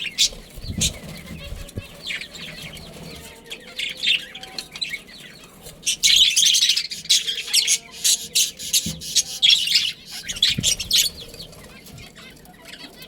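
A group of budgerigars chirping and chattering rapidly, busiest in the middle, with wings fluttering and a few soft thumps.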